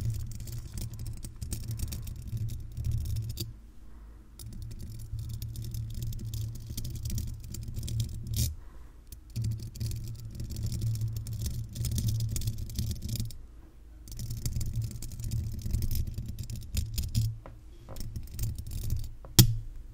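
Paper clips worn on the fingernails scratching and rubbing across a microphone's metal mesh grille, a dense crackly scratching with deep rumble from the mic being handled, in stretches of a few seconds broken by four short pauses. A single sharp click near the end is the loudest sound.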